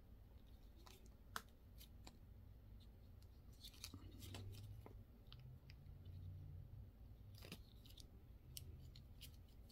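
Near silence with a few faint clicks and light handling noise from a small black folding rescue knife being turned over in the hands; one sharper click about one and a half seconds in.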